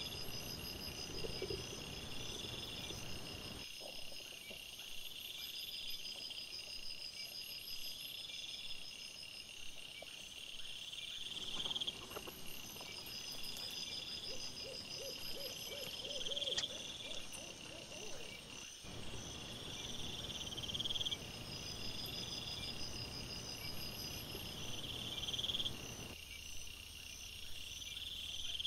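A chorus of crickets and other night insects trilling in repeated pulses a couple of seconds apart, picked up by a trail camera's microphone; the background hiss changes abruptly a few times where short recordings are joined.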